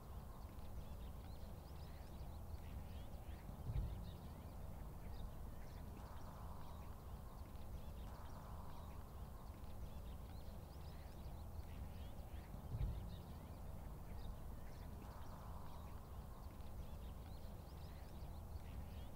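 Faint outdoor ambience: a steady low rumble with scattered short, high bird chirps, and two dull thumps, about four seconds in and again near thirteen seconds.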